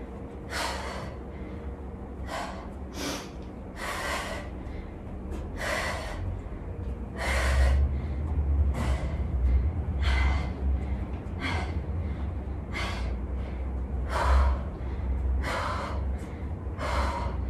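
A woman breathing hard from exertion, with a short forceful breath about once a second, over a low rumble.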